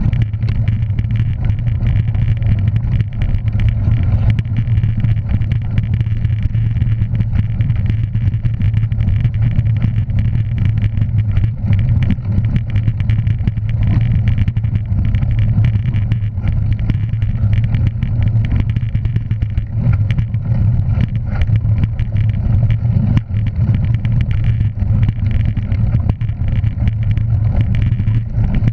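Steady drone of a vehicle engine running at an even speed, a constant low hum with a few steady higher tones over it and no revving.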